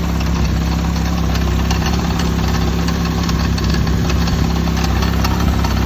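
Nissan 180SX engine idling steadily, with many faint light clicks over the running: the engine-bay abnormal noise whose cause, a loose or touching part, is being hunted.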